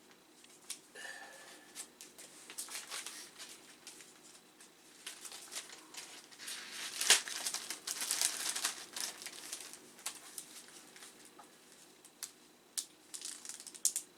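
Paper crinkling and rustling in irregular bursts as printed documentation is handled, with the loudest rustle about seven seconds in and a few sharp clicks near the end.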